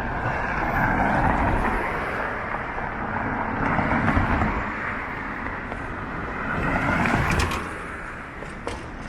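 City street traffic: cars passing one after another, swelling and fading three times, with a few brief clicks near the end of the last pass.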